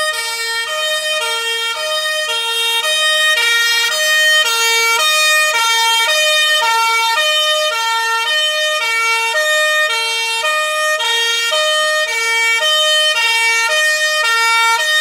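Emergency vehicle siren sounding a loud two-tone hi-lo pattern, switching between a lower and a higher note about twice a second.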